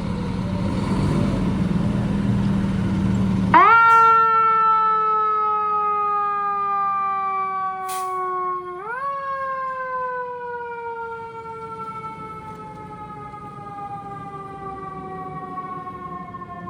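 Heavy fire truck noise with a low steady hum, then a fire engine siren that jumps up quickly in pitch and slowly falls, twice, sliding down over about five seconds the first time and about nine the second.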